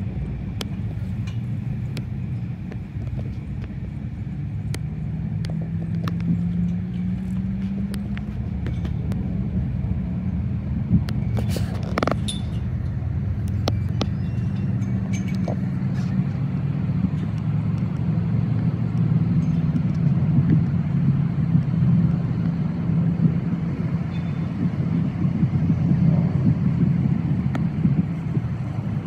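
Low, steady rumble of a motor vehicle engine running, its pitch drifting slightly, with scattered faint clicks and a short high-pitched note about twelve seconds in.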